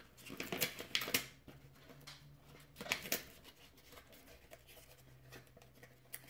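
A paper envelope being handled and opened by hand: light rustling and crisp paper crackles, clustered about a second in and again around three seconds in. A faint, steady low hum runs underneath.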